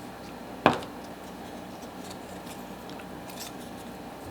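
A single sharp click about two-thirds of a second in, then a few faint light ticks over a low steady hum, from hands handling a GoPro and its plastic faceplate.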